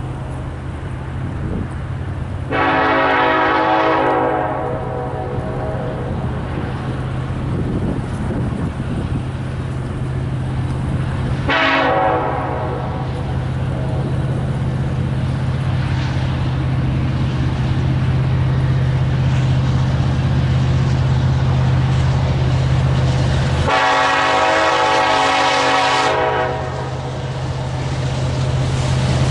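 Diesel locomotive horn sounding three times over the steady drone of the engine: a long blast about two seconds in, a brief toot near the middle, and a longer blast near the end. The horn sounds several tones at once, as a multi-chime horn does.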